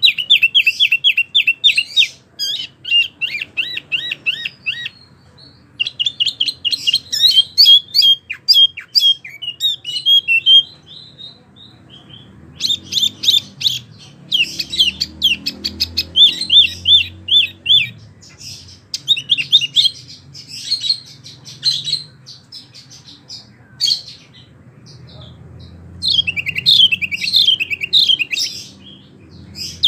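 Wambie mini songbird singing lively, high-pitched phrases of rapid repeated chirps and trills, about five notes a second, broken by brief pauses.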